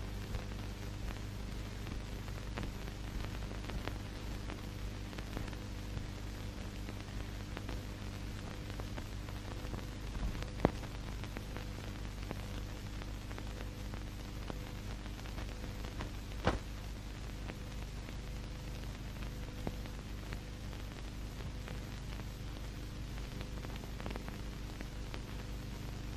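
Steady hiss and low hum of an old film soundtrack, with a few sharp clicks of crackle, the two loudest about ten and sixteen seconds in.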